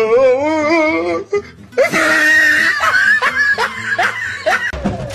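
People laughing hard, with a high, wavering laugh at the start and more bursts of laughter following.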